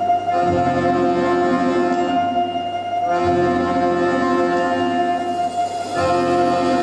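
Orchestra playing a slow instrumental opening: sustained chords, a new one about every three seconds, over one held high note.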